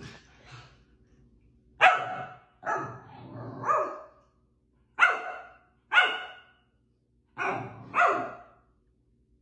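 Pomsky barking at her owner, who has frozen mid-play: seven sharp barks about a second apart, the last four in two quick pairs.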